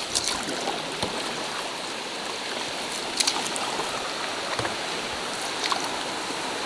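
Steady rush of river rapids just ahead of a canoe, with a few brief splashes and knocks from paddle strokes.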